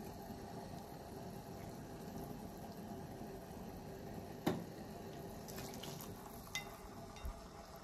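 Broth boiling steadily in a stainless saucepan on an electric hot plate, a low bubbling hiss. One sharp click comes a little past halfway, and a few light taps follow near the end.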